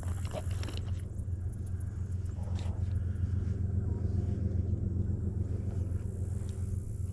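Engine idling with a steady low hum, with a few faint clicks over it.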